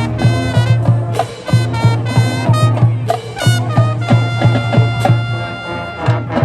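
High school marching band playing, with brass over regular drum strokes. About four seconds in, the band holds a sustained chord.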